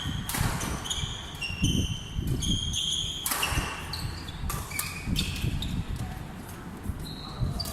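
Badminton play on an indoor court: sneakers squeaking repeatedly on the floor as players move, among sharp hits and footfall thumps.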